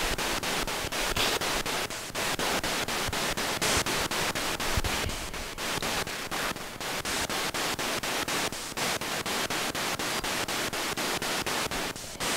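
Radio 'spirit box' sweeping through stations: a steady hiss of static chopped by short gaps about five times a second as it jumps from frequency to frequency.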